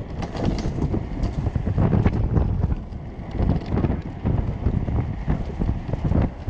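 Wind buffeting the microphone over the low rumble of a homemade electric go-kart rolling along a rough asphalt path, with irregular rattling knocks from the kart throughout.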